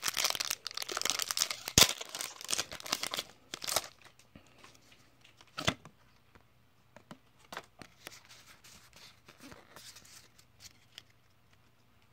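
Foil Pokémon booster pack wrapper being torn open and crinkled for about three and a half seconds, with one sharp crack near two seconds in. Then come quieter, scattered rustles and clicks as the cards are slid out and handled.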